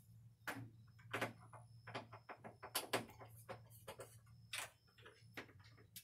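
Screwdriver working the screws on a storm door's handle hardware: many small, irregular metal clicks and taps.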